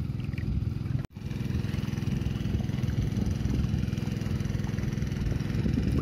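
A motor engine running steadily with a fast even pulse. It drops out for an instant about a second in.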